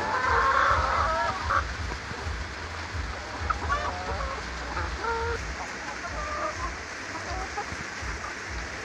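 Broody hen sitting on her eggs clucking, with a dense burst of calls in the first second and a half, then scattered short clucks.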